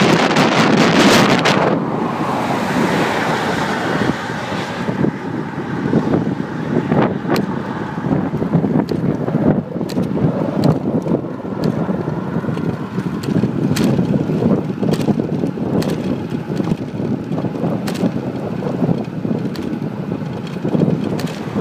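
Wind buffeting the microphone of a camera carried on a moving bicycle, heaviest in the first few seconds and easing after, with scattered clicks and rattles.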